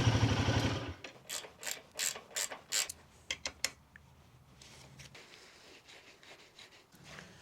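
Royal Enfield Himalayan 450's single-cylinder engine idling, switched off about a second in. Then a quick run of about eight sharp ratcheting clicks, followed by faint handling noise.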